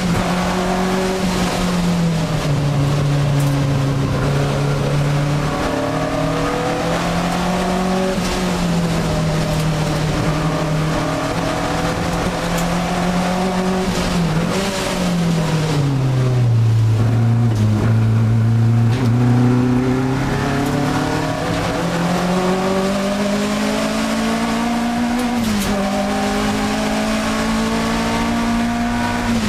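Alfa Romeo 1750 GTV's twin-cam four-cylinder engine at racing speed, heard from inside the cabin, revving up and down with the gear changes. About halfway through its pitch falls, holds low for a few seconds, then climbs again.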